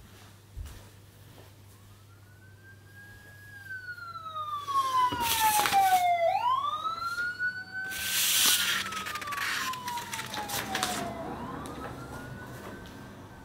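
Emergency vehicle siren wailing: a slow cycle of quick rises and long falling glides, repeating about every five seconds. Two loud bursts of rushing noise come about five and eight seconds in.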